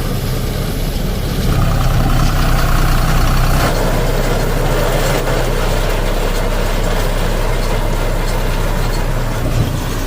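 Deutz Fahr 4050E tractor's three-cylinder diesel engine running steadily while driving a round straw baler, with a continuous mechanical clatter from the baler; the engine note changes a little under four seconds in.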